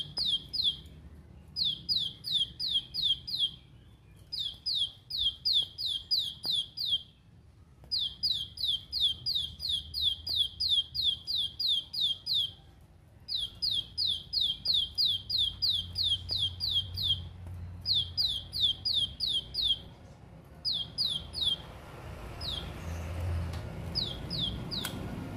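Plain prinia (ciblek sawah) singing its rapid 'ngebren' song: runs of sharp, high, downward-sweeping notes at about three to four a second, in bursts of a few seconds with short pauses between. The runs grow shorter and sparser near the end.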